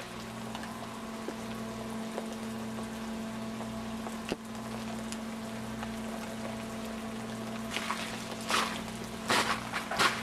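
Scattered faint ticks over a steady low hum, then, about three-quarters of the way through, footsteps crunching on ice-crusted snow, several steps in a row.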